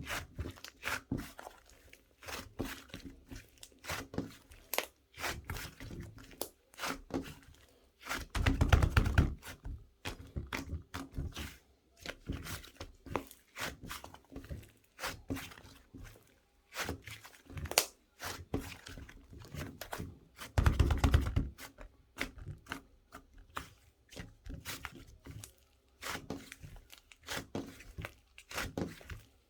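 Close handling noise: irregular taps, clicks and light knocks, with two louder stretches of rubbing or rustling about a third of the way in and again about two-thirds through.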